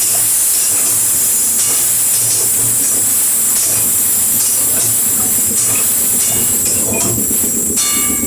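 Mixed vegetables and ground spices frying in hot oil in a pan, sizzling steadily, with a few short clicks.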